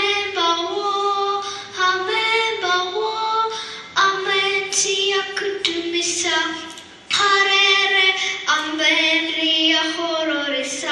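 A young girl singing solo with no instrument heard, holding sung notes and gliding between them, with a short breath pause about seven seconds in.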